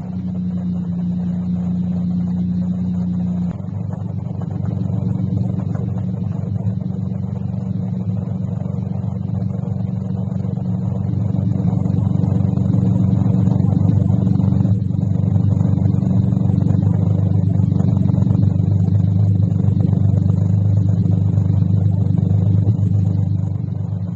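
Ford Ranger's 4.0 V6 engine running with a deep, steady exhaust rumble. Its note steps down about three and a half seconds in, then holds steady, a little louder in the second half.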